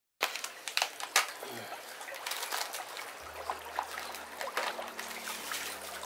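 Small aquarium waterfall running: water trickling and splashing, with many small drips and plinks. A low steady hum joins about three seconds in.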